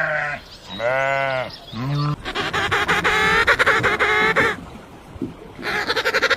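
Farm animals bleating: three short bleats in the first two seconds, then a long, rapidly quavering bleat, and another quavering call beginning near the end.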